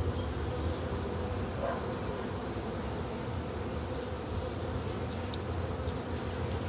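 Honey bees buzzing steadily around an opened hive as the frames go back in, with a few faint clicks.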